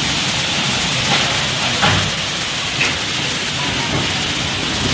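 Torrential rain and strong storm wind blowing steadily, with a few brief knocks, the sharpest about two seconds in.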